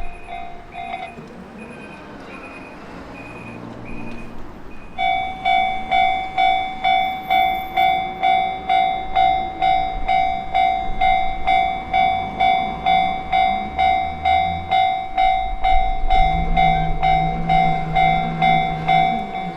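Japanese railway level-crossing warning bell ringing in a steady kan-kan rhythm of about two strikes a second; it stops about a second in, then starts again about five seconds in and keeps ringing. A low steady hum joins near the end.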